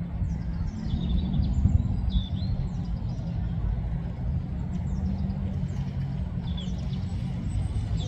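A steady low rumble of road traffic, with faint high chirps of small birds over it. The chirps are short calls that drop in pitch, several in the first few seconds and again near the end.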